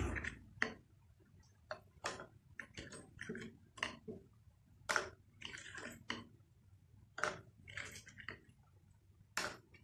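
Light, irregular clicks, taps and scrapes of small plastic toy kitchen pieces being handled, with a toy juicer twisted and knocked in its plastic bowl.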